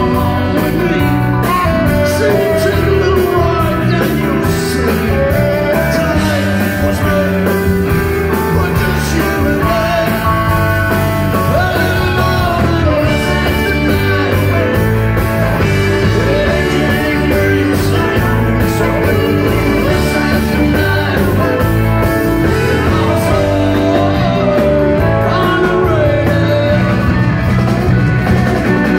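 Live rock band playing loudly: electric guitars, saxophone and drums, with a lead singer.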